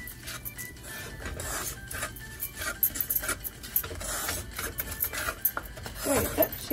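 A wooden spatula scraping and stirring chili powder and oil around the bottom of a heavy black cooking pot, in repeated irregular strokes.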